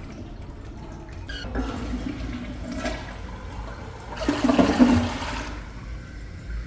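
Toilet flushing: rushing water, with a louder surge about four to five and a half seconds in.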